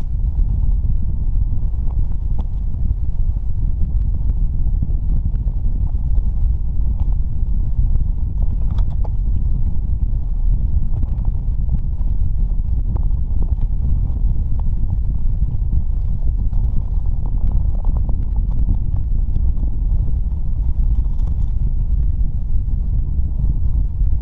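Strong wind buffeting the microphone: a steady, heavy low rumble, with faint scattered ticks.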